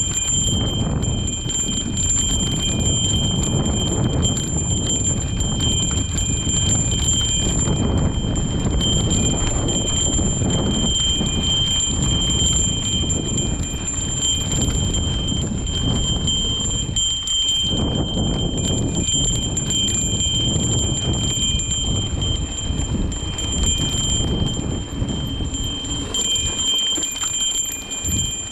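A bike-mounted trail bell on an electric mountain bike ringing continuously as the bike jolts down a dirt trail, over a steady low rumble of the ride.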